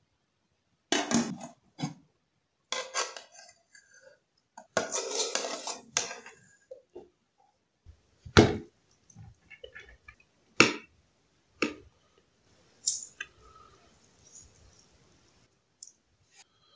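Metal ladle and spoon scraping and clinking against a pot and a ceramic plate as biryani rice is scooped and served. Several scraping strokes come in the first six seconds, then four sharp clinks.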